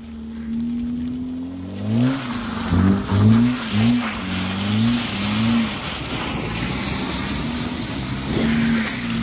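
A small hatchback's engine revving up and down over and over as the car spins donuts on a snowy lot, its pitch held steady at first, then swinging up and down several times from about two seconds in. A steady rushing noise runs under it from about two seconds in.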